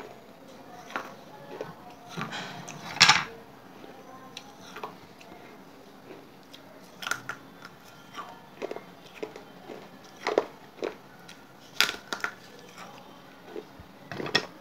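Wet clay chips being bitten and chewed: irregular crisp crunches and snaps, the loudest about three seconds in, with quieter chewing between.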